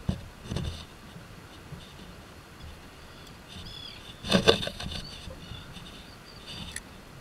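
Clatter from a fishing rod and spinning reel being handled in a kayak. A few light knocks come near the start, and a loud cluster of sharp knocks comes about four and a half seconds in.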